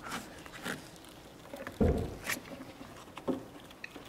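Handling noises of gloved hands and a rag working on a plastic brake fluid reservoir cap with its level sensor: scattered rustles and light clicks, with one dull thump a little under two seconds in.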